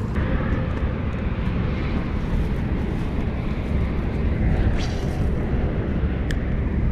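Strong wind buffeting the microphone: a steady low rumble, with a couple of brief clicks in the second half.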